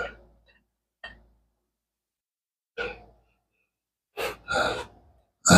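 A man's heavy breathing: a series of short, noisy breaths and sighs with quiet gaps between them, the loudest near the end.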